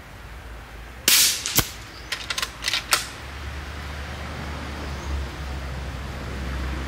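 A PCP air rifle, an upgraded Uragan 2, fires a .22 slug about a second in: one sharp crack with a short tail and no spring twang, which the new hammer spring guard has removed. A quick run of metallic clicks follows as the biathlon-style cocking handle is cycled and the magazine indexes the next round. A low steady hum sets in partway through.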